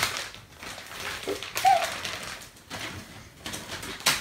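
Clear plastic gift bag crinkling and rustling in irregular spells as it is handled open and a piece of clothing is pulled out, with a sharp crackle near the end.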